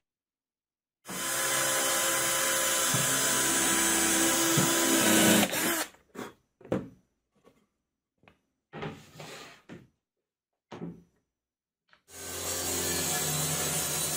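Cordless drill running and boring into plywood, its pitch dipping a couple of times under load. Then several seconds of scattered knocks and rubs of wooden pieces being handled, and a table saw motor starting about twelve seconds in and running steadily.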